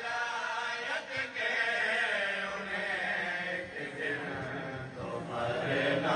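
A man's voice through a microphone chanting a long, drawn-out line of an Urdu devotional recitation in praise of wilayat, the pitch wavering and gliding without words being picked out.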